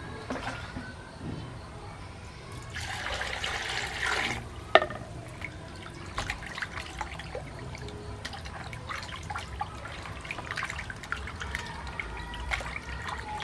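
Water splashing and trickling, with scattered small clicks and knocks and one sharp knock about five seconds in.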